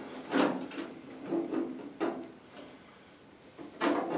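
Steel bedside patch panel being pressed and shifted by gloved hands against a 1985 Chevy K10's bedside: a few short sheet-metal clicks and light scrapes at irregular intervals, the loudest near the end, as the panel is test-fitted into the cut-out.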